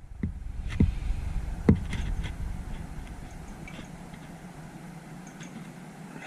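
Light handling clicks and knocks from wires and a crimped butt connector being worked into place under a car's dashboard. The sharpest come in the first two seconds, then fainter ticks follow, over a steady low hum.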